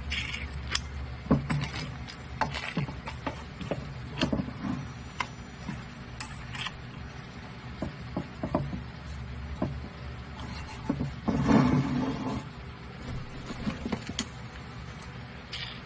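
Irregular wooden knocks and small metal clicks as wooden disc clamps on threaded steel rods are set around a small wooden instrument body and their wing nuts are run down and tightened. A louder stretch of handling and clattering comes late on.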